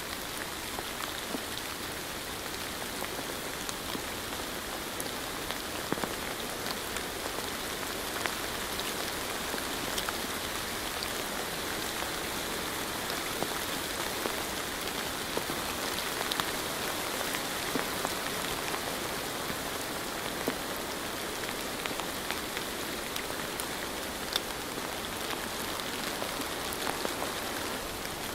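Steady rain falling, an even hiss with scattered sharper ticks of individual drops landing.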